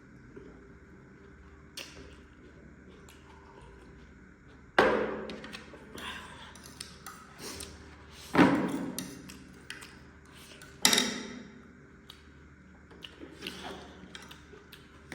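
Close-miked noodle eating: three sharp, loud sounds, each dying away over about a second, about five, eight and eleven seconds in, with quieter small clicks and mouth sounds between them.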